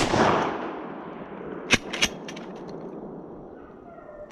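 A close shotgun blast that rolls away in a long echo over about a second. Just under two seconds in comes another sharp crack, then a few quick clicks, and a further crack at the very end.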